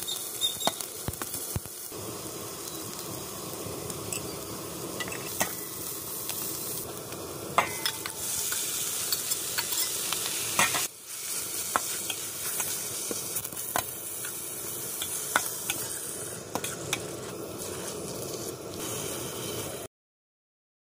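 Chopped shallots, garlic and green chillies sizzling as they fry in a steel pan, with a slotted metal spatula scraping and clicking against the pan as they are stirred. About eight seconds in the sizzle turns louder and hissier, as the pan fills with cleaned shellfish meat, and the sound cuts off abruptly near the end.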